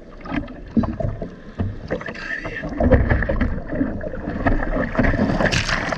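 Sea water splashing and sloshing around a surfboard as the surfer paddles with his arms, heard right at the water's surface, with an uneven run of splashes that grows busier and louder about halfway through.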